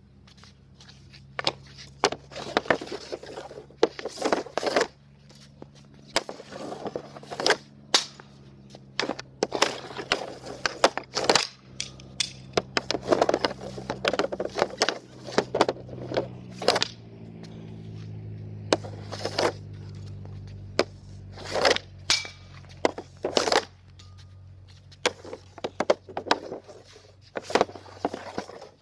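Ice hockey pucks being shot one after another with a Bauer AG5NT composite stick off a plastic shooting pad: the blade scrapes the pad and cracks against each puck, with clacks as pucks land and hit the net, every second or so. A low steady hum runs underneath and swells for a few seconds in the middle.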